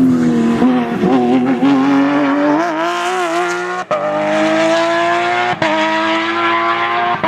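Porsche 911 GT3 flat-six engine pulling hard under acceleration, its pitch climbing steadily. Three quick upshifts, about four, five and a half and seven seconds in, each make a brief break and a drop in pitch before it climbs again.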